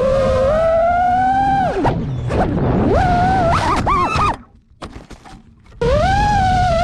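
FPV quadcopter's brushless motors whining, the pitch rising and falling with the throttle. The whine drops sharply about two seconds in, climbs and wavers again, then cuts off abruptly as the quad crashes, leaving a few faint clicks. A fresh motor whine starts near the end.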